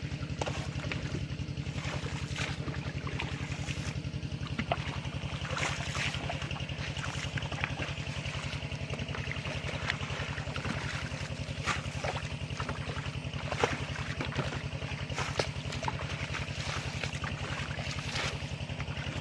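A small engine running steadily with an even, rapid low putter. Water trickles and splashes over it, with scattered light clicks and knocks.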